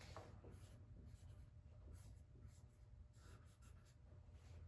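Near silence: faint scraping and light taps of a small piece of wood being handled on a workbench, over a low steady hum.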